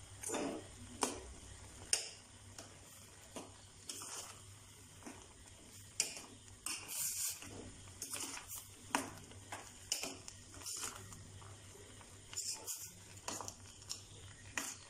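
Metal spoon stirring a thick curry of dal and vegetable pieces in a stainless-steel pot, with irregular scrapes and clinks against the pot.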